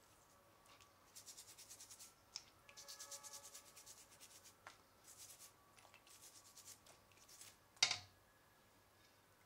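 Toothbrush bristles scrubbing a crawfish shell in quick back-and-forth strokes, in several short bouts. Near the end there is one sharp, louder knock as the plastic brush is set down against the stainless-steel bowl.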